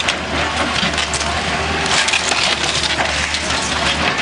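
Wood cracking, crunching and splintering as a tornado-damaged house wall is pulled down, with many short cracks through a dense crackle. A steady low drone runs underneath.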